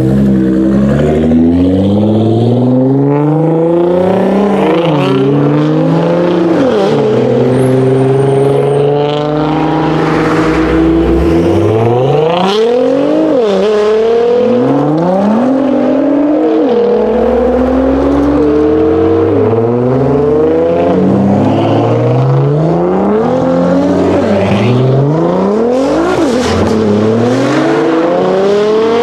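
Nissan GT-R engine accelerating hard through the gears. Its pitch climbs and then drops sharply at each upshift, again and again every couple of seconds.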